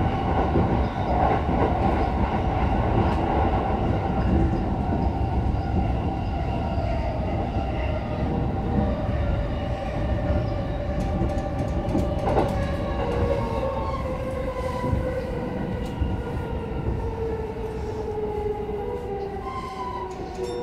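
Keihin-Tohoku Line E233-series electric train heard from inside the car: the traction motors' whine falls slowly and steadily in pitch over the rumble of the wheels on the rails as the train slows to stop at a station.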